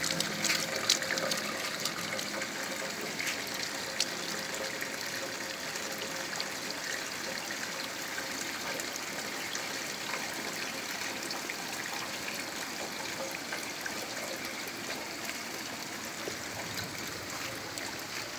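Steady rain falling on wet ground, grass and a concrete cistern, an even hiss with scattered sharp ticks of drops landing close by.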